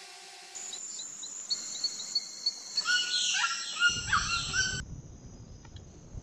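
Rainforest birds calling over a steady high tone: first a string of short repeated chirps, then several birds calling together with rising and falling notes. A low rumble joins about four seconds in, and the bird calls cut off suddenly soon after.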